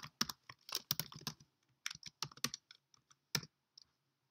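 Typing on a computer keyboard: a quick run of keystrokes in the first second and a half, then a few scattered keystrokes with gaps between them.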